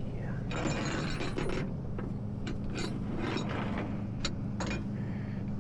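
Metal clicking and rattling from tow rigging being handled, with a noisy rattle early on and scattered sharp clicks after, over a truck engine running steadily at idle.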